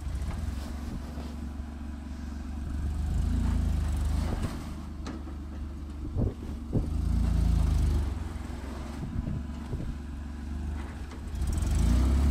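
1987 Nissan pickup's engine running under load as the truck pushes through deep snow, its revs rising and falling three times.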